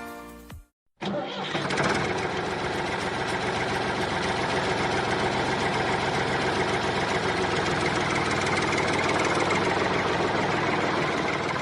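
Tractor engine running steadily, with a dense hiss over its low hum; it starts abruptly about a second in.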